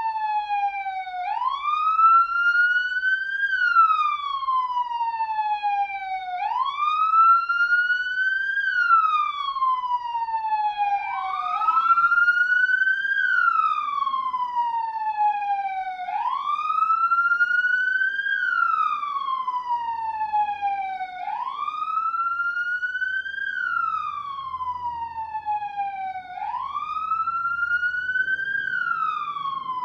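Arab police siren wailing: its pitch climbs to a peak over about two seconds, then slides down over about three, repeating roughly every five seconds.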